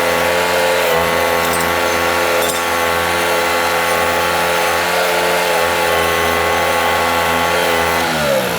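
Norwood MX34 portable bandsaw mill running steadily at speed. Near the end its engine winds down, the pitch falling.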